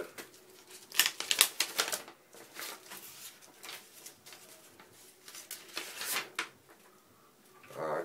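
Paper rustling and crackling in short spells as a folded letter is unfolded and handled, loudest about a second in.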